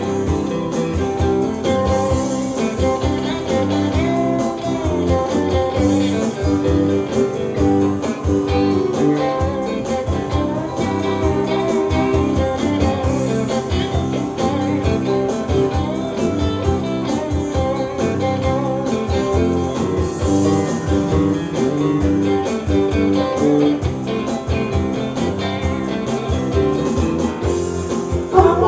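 Band playing an instrumental passage of a rock song: guitar over bass and drums, with a cymbal crash every few seconds.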